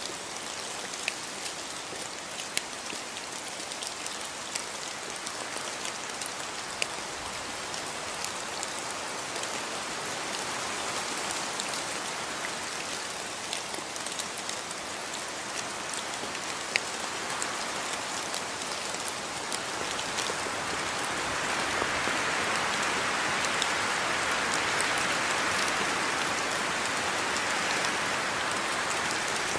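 Steady rain falling, a continuous hiss with a few sharper drop strikes scattered through it. It grows louder and fuller about two-thirds of the way through.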